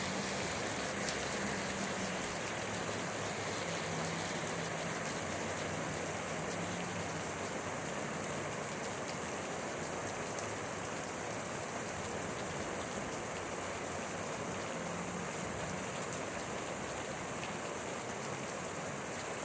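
Steady rain falling, an even wash of sound without a break, with a faint low hum coming and going beneath it.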